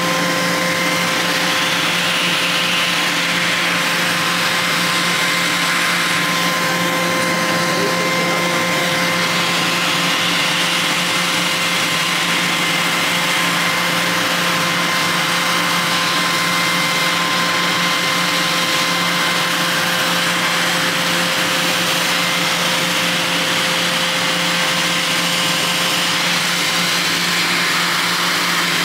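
Laser hair-removal machine with its skin-cooling unit running: a steady, loud whir with a constant high whine over it.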